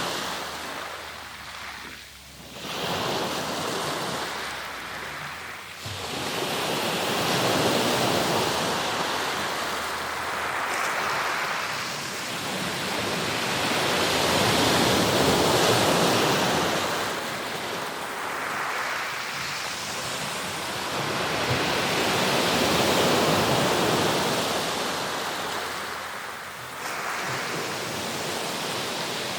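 Sea surf: waves breaking and washing up the shore, the rush of water swelling and easing every few seconds.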